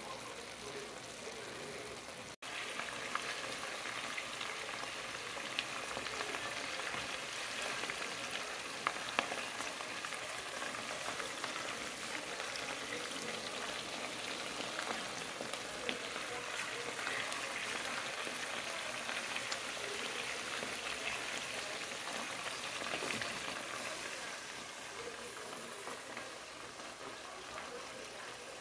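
Chicken pieces sizzling in hot fat in a pot: a steady frying hiss with scattered small pops and crackles.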